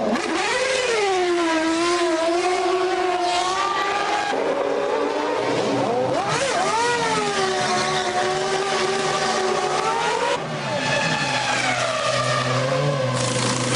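Formula One car V10 engines in the pit lane, revs rising and falling again and again, with an engine held at a steady lower pitch from about halfway through.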